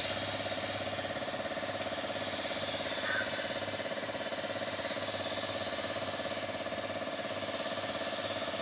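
Air compressor running steadily with a fast, even pulsing, under the constant hiss of a compressed-air paint spray gun spraying a bus's side panels.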